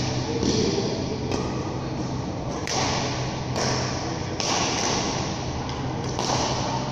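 Badminton rackets striking a shuttlecock in a rally, a sharp hit about once a second, each echoing briefly in a large hall. A steady low hum runs under them.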